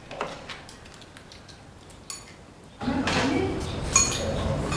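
Chopsticks and spoons clink and tap against ceramic bowls and plates during a meal. About three seconds in, a loud song with singing starts over it.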